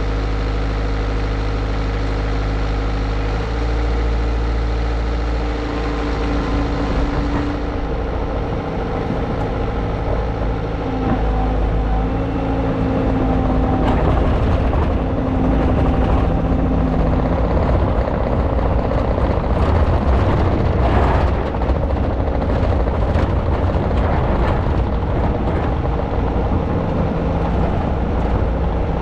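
Bobcat T190 skid steer's diesel engine running steadily while it powers the hydraulics of a Halverson 140B firewood processor. Its pitch shifts a few times as the hydraulics take load. Irregular crackling noise runs through the middle.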